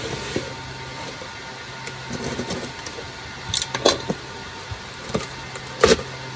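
A cardboard box being handled and opened: scraping and rustling of cardboard, with a few short crackles. The loudest comes near the end as a flap is pulled open. A steady low hum runs underneath.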